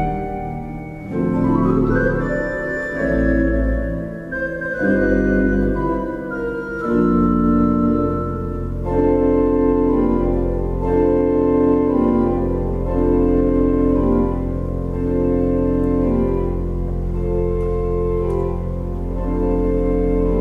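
Organ music: sustained chords that shift at first, then from about seven seconds in a steady low drone under a chord figure repeating every second or so.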